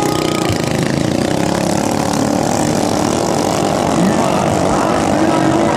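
Several 500 cc longtail racing boat engines running loudly together, their pitches rising and falling against one another.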